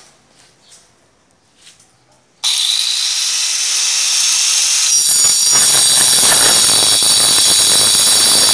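Angle grinder in a homemade slide-saw frame switched on about two and a half seconds in, spinning up with a steady high whine. From about five seconds in its blade cuts into a solid square steel bar, adding a loud harsh grinding.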